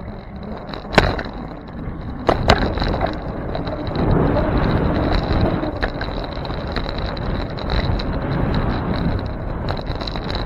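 Bicycle rolling along a city street, heard from a bike-mounted camera: steady tyre and wind noise with sharp knocks about a second in and twice more around two and a half seconds in as the bike jolts over bumps. A thin steady high whine sits underneath.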